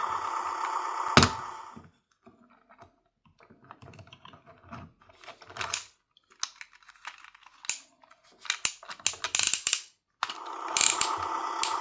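Plastic toy vehicles being handled on a playset: scattered small clicks, taps and rattles, bunched thickly toward the end. At the start and again near the end, a steady buzzy electronic sound effect plays from the toy's small speaker.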